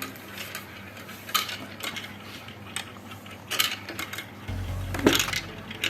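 Balls clicking and knocking as they run down a plastic brick marble run: scattered light clicks, a cluster about three and a half seconds in, and a louder knock about five seconds in.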